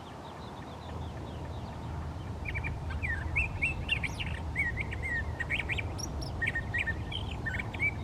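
Curve-billed thrasher singing: a long, unbroken run of quick, varied warbled phrases that starts about two and a half seconds in.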